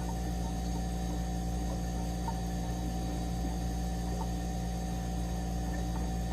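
A steady electronic drone made of many held tones over a low rumble, playing as a tone track meant to repel mosquitoes.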